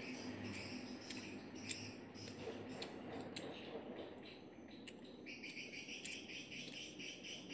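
Insects chirping in a fast pulsing rhythm, with scattered soft clicks and chewing sounds from someone eating.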